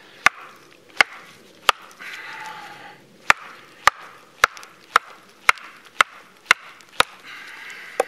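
Wooden baton striking the spine of a TOPS Tom Brown Tracker knife to drive its quarter-inch-thick blade through a thick log. There are about eleven sharp knocks: three, a short pause, then eight more at about two a second.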